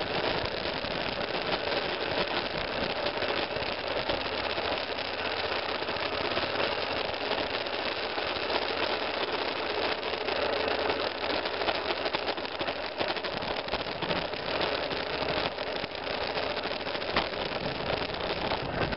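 Single-cylinder motorcycle engine running steadily while riding a muddy trail, heard through a camera mounted on the bike's mirror.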